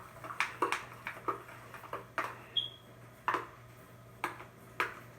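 A mixing tool knocking against a bowl while soap slime is stirred: about seven short, irregular clicks, with a brief high ping near the middle.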